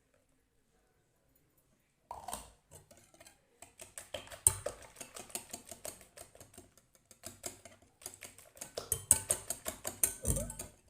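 Batter being beaten by hand with a wire whisk in a bowl: quick rhythmic clicking, about four or five strokes a second. It starts about two seconds in and pauses briefly past the middle.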